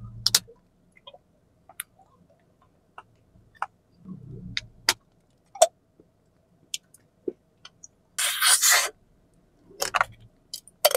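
A hand-sized wax candy (kẹo sáp) being bitten and chewed: irregular, sharp cracking clicks of the wax shell breaking, with chewing between them. About eight seconds in there is a loud slurp as the liquid filling is sucked out of the opened candy.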